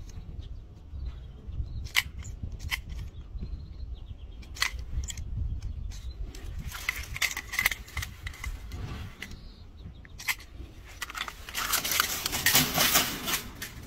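Scattered light clicks and rattles of a plastic toy being handled at a chain-link fence, becoming a louder run of rattling near the end as a macaque takes hold of it.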